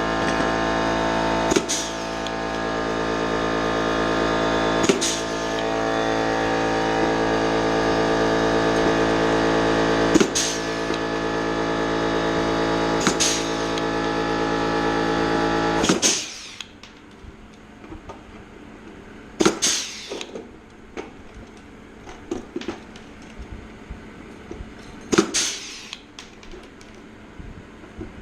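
Pneumatic rivet puller snapping blind rivets into aluminium skin, a sharp crack every few seconds, about eight in all, over the steady hum of an air compressor motor that shuts off about halfway through.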